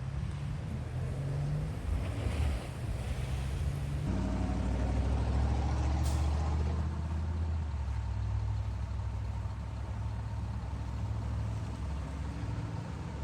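Heavy vehicle engines running steadily, with a low hum. The sound changes abruptly about four seconds in to a deeper engine, and there is a brief hiss about six seconds in.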